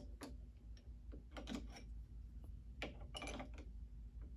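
Light clicking and clinking of hand tools on metal as a screw on a V-groove bearing stud of a knife-making surface grinder jig is tightened, with a wrench holding the nut underneath. A few separate clicks, then small quick clusters about a second and a half in and about three seconds in.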